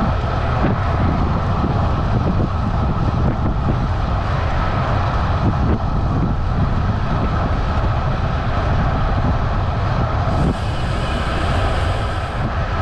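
Wind rushing over a handlebar-mounted action camera's microphone as a road bike rides at about 55 km/h, with the tyres humming on asphalt. A brighter hiss joins for a couple of seconds near the end.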